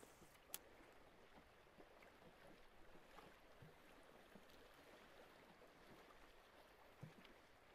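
Near silence: a faint, even hiss of water lapping around the boat, broken by one sharp click about half a second in and a soft thump near the end.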